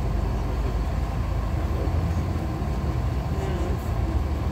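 Cabin of a LiAZ-6213.22 articulated diesel bus under way: a steady low engine and road rumble with no distinct events.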